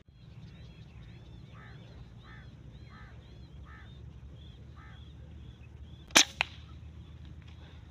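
A small bird calling over and over, a short high call about every two-thirds of a second, over a steady low rumble of wind. About six seconds in, a loud sharp crack, with a second, fainter crack a moment later.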